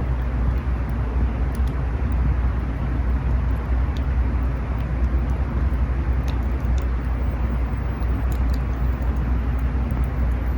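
A steady low rumble that sets in suddenly at the start, like wind buffeting the microphone, over a campfire's faint scattered crackles and pops.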